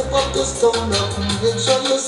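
Sound system music: a record with a heavy, stepping bass line, a steady beat of crisp shaker-like high percussion strokes, and a melody line on top.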